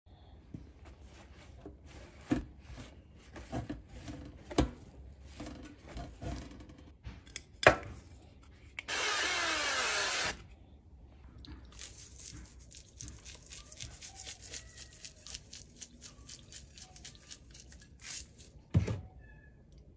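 Kitchen handling sounds: scattered clicks and knocks on a wire air-fryer basket, then a paper towel rubbed and patted quickly over raw fish fillets. A loud, steady hiss about nine seconds in lasts about a second and a half, and a knock comes near the end.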